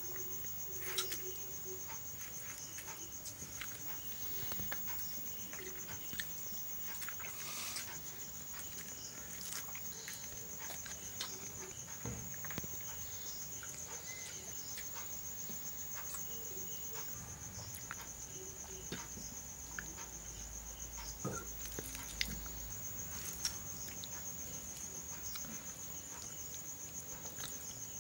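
Crickets trilling steadily in one high, continuous tone. Scattered soft clicks and taps come over it, from fingers mixing rice and curry on a steel plate.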